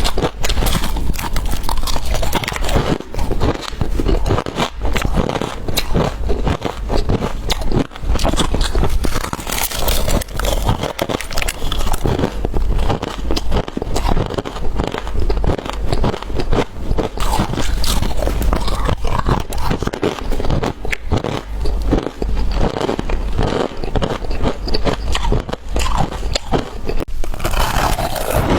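Crushed ice being bitten and crunched close to the microphone: a dense, continuous run of crisp cracking crunches.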